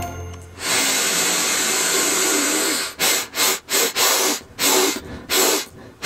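A person sniffing hard through the nose at ground pepper on a board: one long sniff lasting about two seconds, then a run of short, sharp sniffs.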